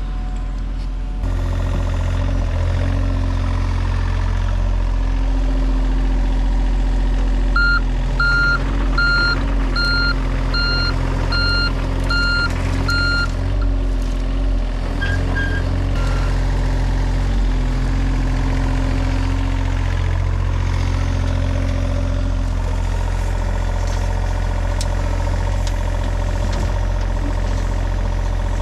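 Heavy vehicle engine running steadily, with its reversing alarm sounding a run of about eight evenly spaced beeps as it backs up partway through.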